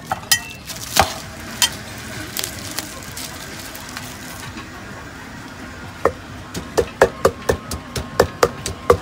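Wooden pestle pounding papaya-salad ingredients in a clay mortar. A steady run of sharp knocks starts about six seconds in, about four a second, after a few scattered knocks and clatter earlier.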